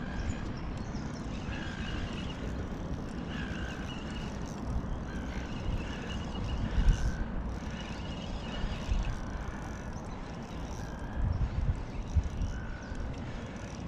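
Wind rumbling on the microphone over a steady water hiss, with a short squeak repeating irregularly every second or two.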